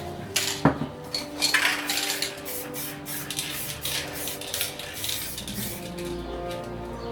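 Short hisses of spray paint and metallic clinks of cans and tools, over background music with sustained notes.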